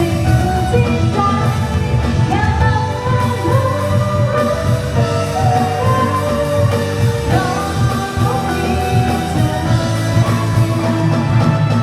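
A band playing a Thai pop song: a voice sings a melody with held notes over a steady low accompaniment.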